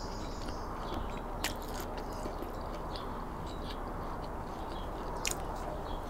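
Close-up chewing of a mouthful of crusty baguette sandwich, with a couple of sharp crunches, one about a second and a half in and another near the end.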